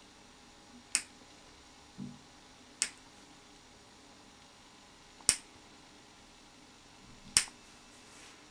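Small metal nail clippers snapping shut four times, a second or two apart, cutting away a damaged toenail, with a soft bump about two seconds in.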